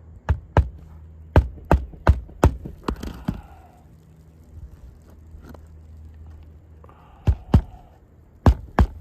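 Hammer driving nails into roofing shingles by hand: a quick run of about eight sharp blows, a pause of a few seconds, then four more blows near the end.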